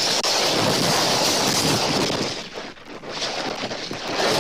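Gusty tropical-storm wind buffeting the nest cam's microphone, a steady rushing noise that eases briefly a little over halfway through and then picks up again.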